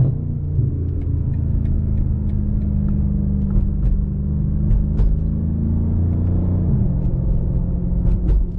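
BMW M5 Competition's twin-turbo 4.4-litre V8 running at a steady cruise, its note dropping a step about seven seconds in.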